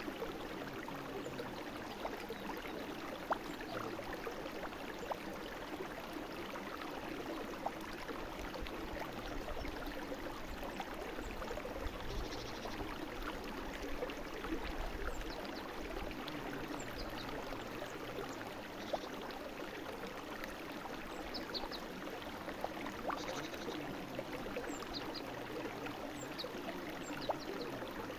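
Brook flowing steadily, an even rush of water with small splashes and trickles.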